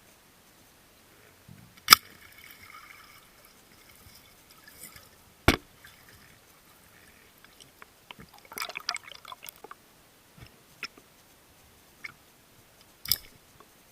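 Underwater sounds: water gurgling, broken by a few sharp clicks and knocks, three of them loud and a quick run of smaller ones in the middle.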